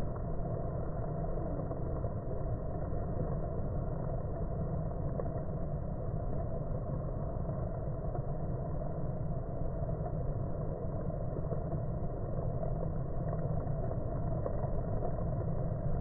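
Steady low droning hum of a crowd of honeybees at the hive entrance, unbroken and engine-like.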